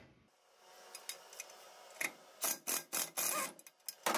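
Hand tools unscrewing a threaded plug from a BMW aluminium cylinder head: faint metallic ticks at first, then a run of louder short clicks from about two seconds in, and a sharp click near the end.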